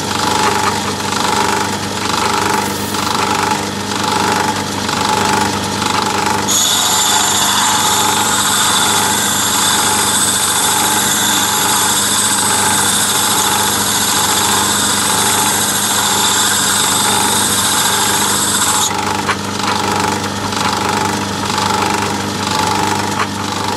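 Lathe motor running with a steady hum, spinning a diamond lapping wheel, while the side of a carbide-tipped lathe tool is lapped against the wheel. A steady high hiss of the lapping starts sharply about six seconds in and stops about nineteen seconds in.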